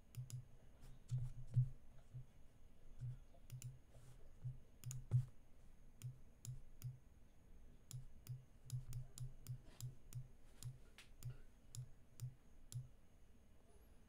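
Faint, irregular clicking of a computer mouse on a desk, about two clicks a second, each with a dull low thud; the two loudest come about one and a half seconds and five seconds in.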